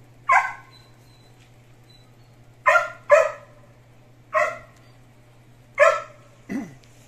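A dog barking in single short barks, about six in all, with two close together about three seconds in and a shorter, lower one near the end.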